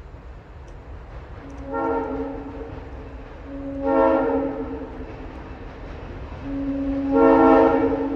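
Diesel locomotive air horn sounding three blasts, each a chord of several notes. The first is short, the second longer, and the last is the longest and loudest, over the low rumble of the approaching train.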